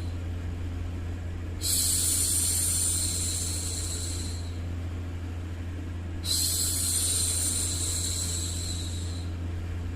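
A woman's voice making long hushing 'shhh' sounds, twice, each lasting about three seconds and trailing off, over a steady low white-noise hum.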